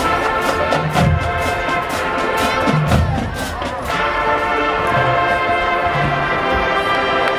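Large marching band playing: brass with a drumline, quick percussion hits through the first half, then a held brass chord over a few low booms.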